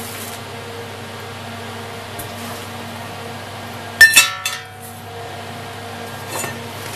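Steel tubing of a welded frame knocked, giving a sharp metallic clink that rings on briefly, with a weaker second clink just after, about four seconds in. A steady low hum lies under it throughout.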